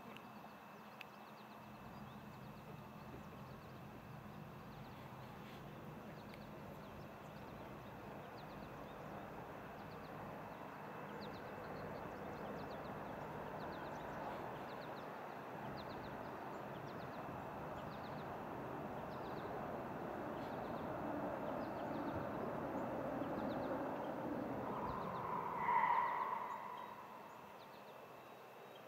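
A vehicle passing: a wash of noise builds slowly, peaks with a brief higher tone near the end, then dies away quickly. Faint, regular high chirps, one or two a second, run underneath.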